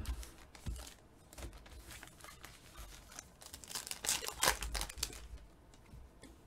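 A 2021-22 Panini Revolution basketball card pack's foil wrapper being torn open and crinkled by hand. The crackling is loudest about four to five seconds in.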